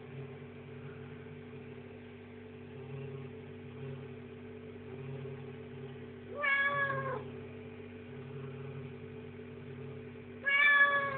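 Calico cat meowing twice, two short meows about four seconds apart; the second, near the end, is the louder.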